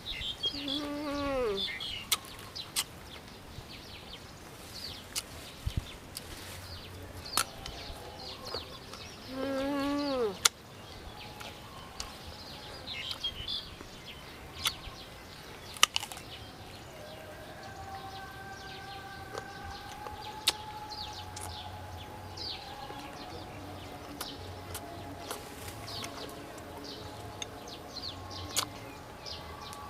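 Crisp bites and chewing of unripe green mango, with short clicks as the wedge is dipped and scraped in the sauce bowl. Twice, near the start and again about ten seconds in, an animal gives a loud call that falls in pitch. From about halfway a faint steady drone sits underneath.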